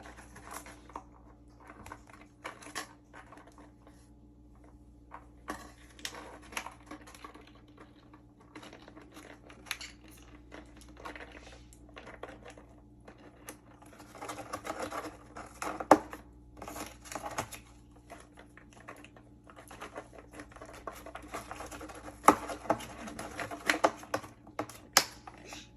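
An African grey parrot nibbling and tearing at a cardboard box with her beak, making irregular dry clicks and crunches. They come in denser flurries a little past halfway through and again near the end.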